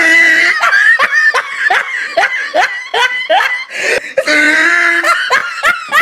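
High-pitched laughter: a quick run of rising 'ha' bursts, about three a second, then a longer drawn-out laugh near the end.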